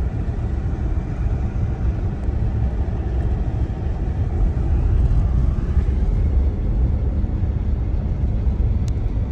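Truck driving along a dirt road, heard from inside the cab: a steady low rumble of engine and tyres.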